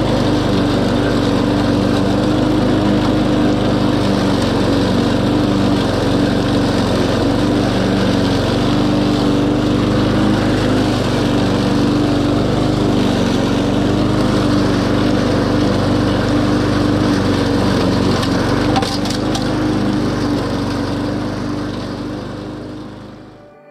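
Walk-behind rotary lawn mower's small petrol engine running steadily while cutting grass. The sound fades away over the last few seconds.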